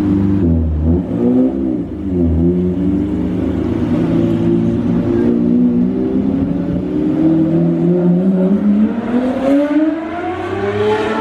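Straight-piped Lamborghini Murciélago V12 running at low revs with a few quick rev blips about a second in, then pulling away, its pitch rising steadily over the last few seconds. With no mufflers it sounds loud and raw, 'nuts'.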